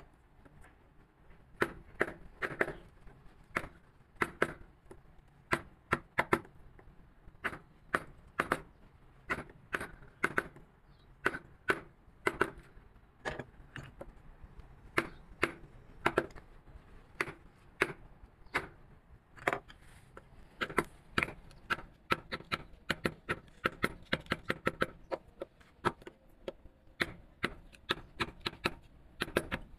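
Hand wood carving: a carving chisel tapped with a mallet into wood, giving sharp, irregular knocks about two or three times a second.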